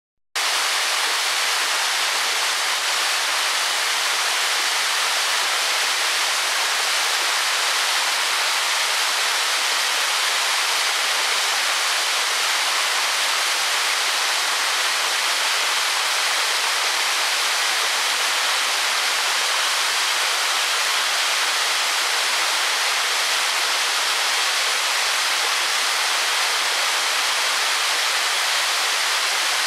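A waterfall of about 15 m drop, its water falling and splashing in a steady, even rush that starts suddenly about half a second in.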